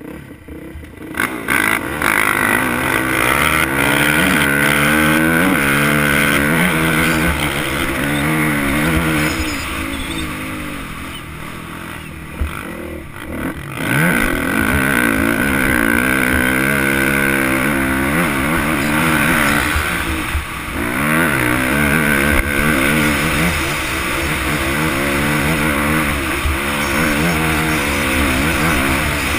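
Dirt bike engine heard from the rider's helmet, revving up and shifting through the gears, its pitch climbing and dropping again and again. About nine seconds in it eases off and runs quieter for a few seconds, then picks up again.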